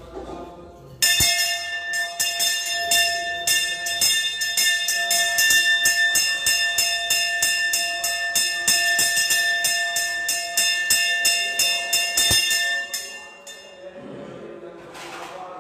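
Temple hand bell (ghanta) rung rapidly and continuously for a ritual offering: a dense run of quick metallic strikes over a steady ringing tone, starting about a second in and stopping a couple of seconds before the end. Faint chanting is heard before and after the bell.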